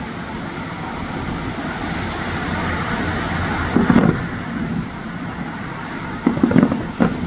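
Fireworks going off over a steady outdoor rumble: one bang about halfway through, then a quick string of bangs near the end.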